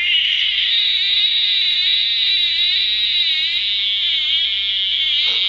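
Personal safety alarm (a pull-pin 防犯ブザー) sounding with its pin pulled: a loud, shrill electronic shriek whose pitch wavers rapidly and keeps on.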